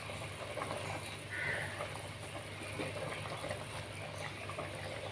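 Fish curry boiling in a clay pot: a faint, steady bubbling of the gravy.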